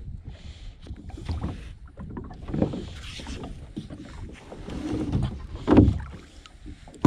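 Magnet-fishing rope being hauled hand over hand into a plastic kayak, with rubbing, rustling and irregular knocks against the hull and paddle. One louder thump near the end.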